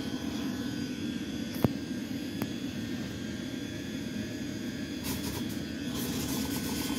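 ScotRail electric multiple unit running past along the platform: a steady rumble of wheels on rail, with a sharp click about one and a half seconds in, another just under a second later, and a rapid ticking rattle near the end.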